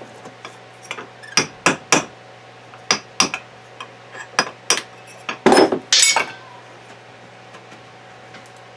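Hammer tapping on metal to drive a worn needle bearing out of a gearbox housing: about eight sharp, ringing taps at an uneven pace, often in pairs, with a louder clatter about five and a half seconds in.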